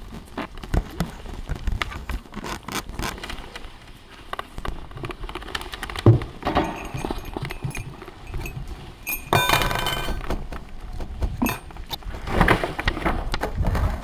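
Experimental electroacoustic sound collage: scattered, irregular clicks and knocks, with a heavy thump about six seconds in and denser stretches of noise about nine seconds in and near the end.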